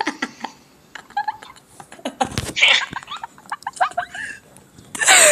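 Two people laughing in short, high-pitched bursts of giggling and breathy gasps, one of them heard over a phone video call.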